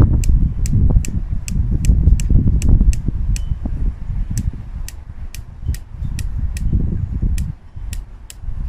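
Fire Wolf 8-32x56E rifle scope turret being turned click by click during a box test, a steady run of sharp clicks about three to four a second. Under the clicks runs a low, uneven rumble.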